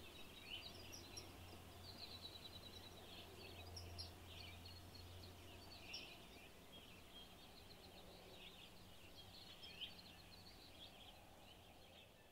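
Near silence with faint bird chirps and twitters throughout, over a low hum that stops about halfway through.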